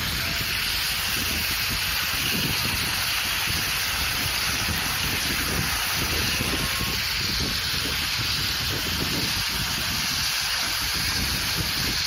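Electric power trowel with a 400 mm float disc running over fresh concrete, smoothing the road surface: a steady, even noise of the motor and the disc sweeping the wet slab.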